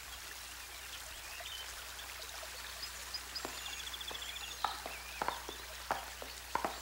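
Quiet countryside ambience: a faint steady hiss with scattered high bird chirps and a short trill in the middle, then a few sharp clicks in the second half.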